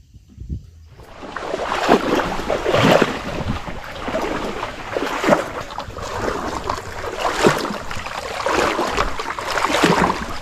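Water rushing and splashing around a small boat under way, with wind buffeting the microphone. The noise comes in about a second in and stays loud and uneven.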